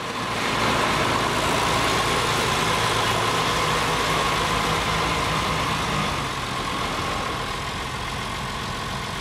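Massey Ferguson 3000-series tractor diesel engines running steadily close by, with a steady high whine over the engine note.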